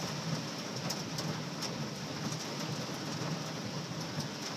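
Heavy rain and hail pelting a car, heard from inside the cabin: a steady rush with a few scattered sharp ticks of stones striking the body.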